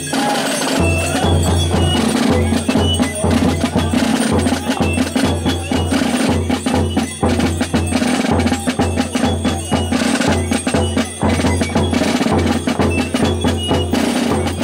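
Carnival drums beating a steady rhythm while the Gilles' belts of brass bells jingle as they dance, with many short clattering knocks over the beat.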